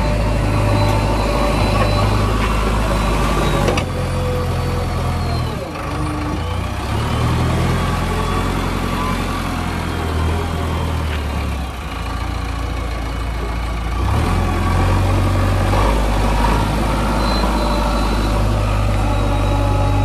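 JCB 3DX backhoe loader's diesel engine running as it works, its level and pitch stepping up and down every few seconds, with a faint high whine at times.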